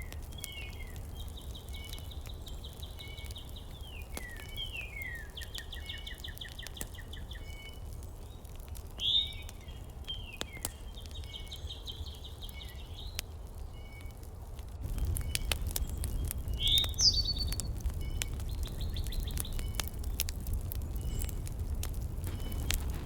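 Small birds singing in repeated short trilled phrases over a steady low rumble with scattered faint clicks. The rumble grows louder about fifteen seconds in.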